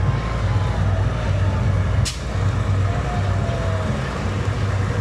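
Case International tractor's diesel engine running with a low, throbbing rumble as it pulls a parade float slowly past at close range. A single short, sharp snap is heard about two seconds in.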